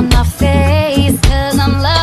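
Background music with a steady bass beat and a gliding melody line.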